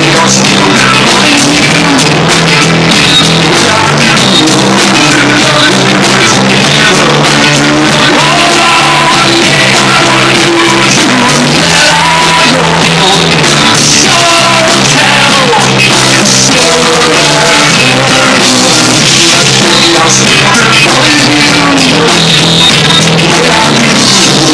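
A rock band playing live: electric bass guitar and drum kit in a loud, continuous song.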